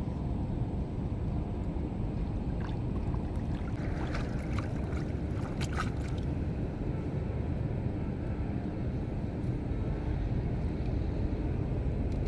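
Steady low rumble over the whole scene, with a run of water splashes and drips about four to six seconds in as a fine-mesh fishing net is lifted out of shallow floodwater.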